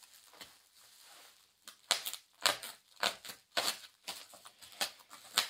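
Plastic packaging wrap crinkling and tearing as it is pulled off by hand, quiet at first, then a quick irregular series of sharp rustles from about two seconds in.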